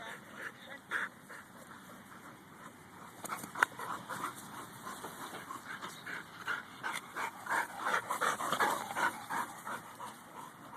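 Dog panting in quick repeated breaths that grow busier and louder in the second half, with one sharp click about three and a half seconds in.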